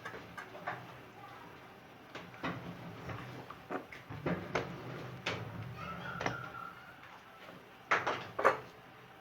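Hands folding oiled dough on a work surface: scattered soft knocks and clicks of handling, with two louder knocks near the end.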